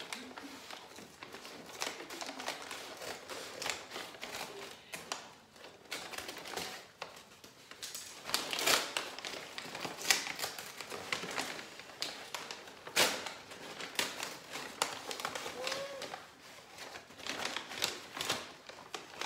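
Brown kraft-paper plant wrapping being cut and pulled open by hand: irregular rustling and crinkling with sharp crackles, busier and louder in the second half.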